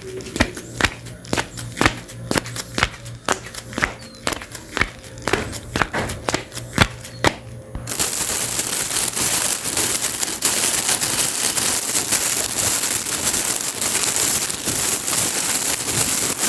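Homemade Foley sound effects: sharp clicks or snaps, about two to three a second, then about eight seconds in a sudden switch to a loud, steady crackling hiss.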